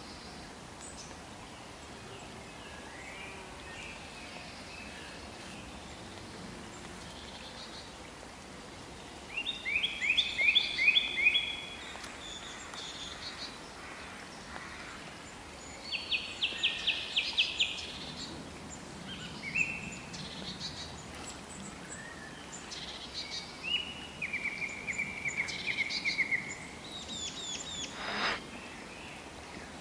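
Birds singing over a steady outdoor hiss: scattered chirps and several fast trills of repeated notes, the loudest about ten seconds in and again around sixteen seconds.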